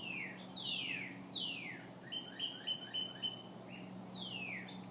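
Two northern cardinals singing back and forth: clear downslurred whistles, then a quick run of about five short chirps in the middle, then more downslurred whistles near the end.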